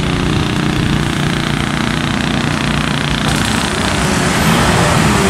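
Diesel engine of a Hino RM 280 coach bus running under load as it comes past, a steady low drone that grows fuller about three seconds in as the bus draws close.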